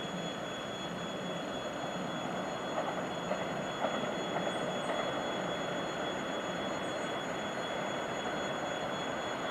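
TEP70 diesel passenger locomotive approaching from a distance: its diesel engine and running gear make a steady drone that grows slightly louder, with a few faint clicks about three to four seconds in.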